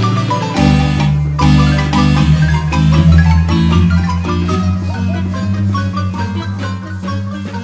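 Marimba music: quick mallet notes over a steady bass line.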